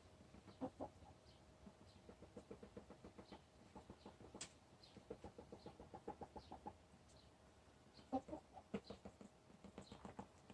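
Hen making a faint, low, pulsing noise: long runs of soft rapid clucks, several a second, broken by a few short higher chirps. Her owner wonders whether it means she is going broody.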